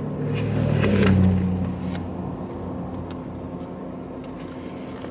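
Low vehicle hum heard from inside a parked car: a steady drone that swells louder about a second in and fades again, with a few soft knocks of something being handled.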